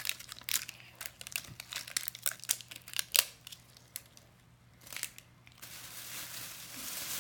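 Small plastic wrapper crinkling and tearing in a child's fingers as a toy accessory is unwrapped: many short, sharp crackles. For the last second and a half an even hiss takes over.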